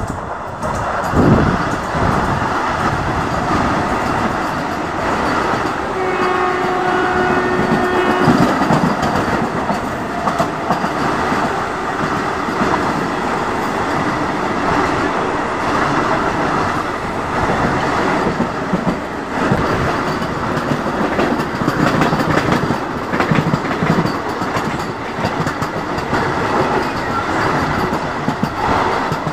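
Vande Bharat Express trainset rushing past close alongside on the next track: a steady, loud rumble and rattle of wheels and coaches, heard from the open door of a local train. About six seconds in, a train horn sounds for about two and a half seconds.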